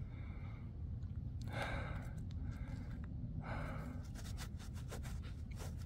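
Two short breathy puffs of air from a person, about two seconds apart, with a few faint clicks of handling between them.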